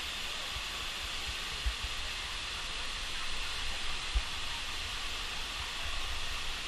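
Waterfall's steady rush of falling water, with a few low thumps on the microphone, the strongest about four seconds in.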